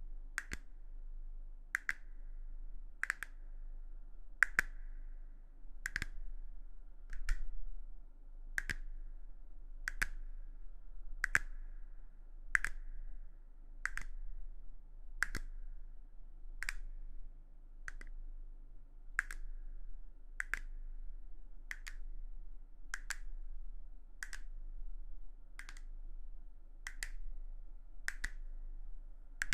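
A steady, even series of short, sharp clicks or taps, about one every second and a third.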